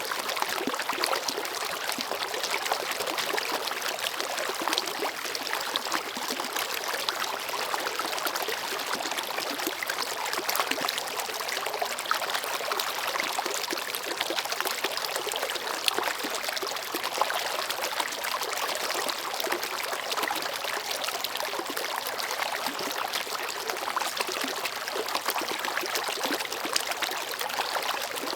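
Shallow stream babbling: a steady rush of running water, light in bass and full of small splashes and trickles.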